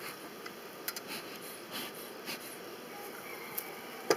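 Bee smoker's bellows giving several short puffs of air, then a sharp knock near the end as the metal smoker is set down on the wooden pallet.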